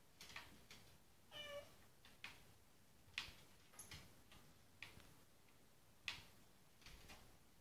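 A domestic cat gives one short meow about a second and a half in, amid scattered light clicks and taps.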